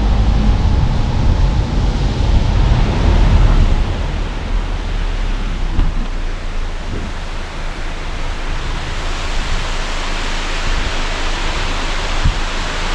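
Car driving, its engine and tyre rumble heavy for about the first four seconds and then lighter, under a steady rushing hiss of falling water that grows louder after about nine seconds.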